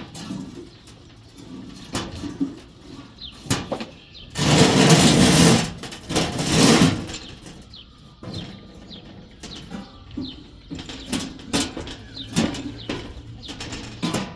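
Metalwork on a steel box: scattered sharp knocks and clanks, and a loud rushing hiss lasting about two and a half seconds in the middle. Birds chirp faintly in the background.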